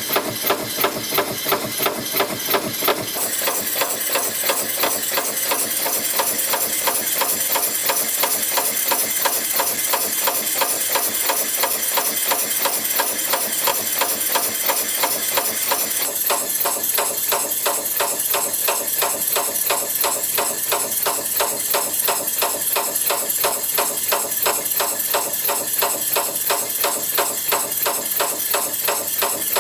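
YHM FB-210A CNC spring-forming press machine running in production, its tooling striking in a rapid, even clatter while forming 0.2 x 0.7 mm spring clips. The strokes come about three a second at first, then faster and denser from about three seconds in.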